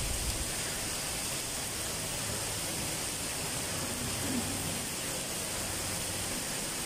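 Steady, even background hiss of the room, with no voices and no distinct events.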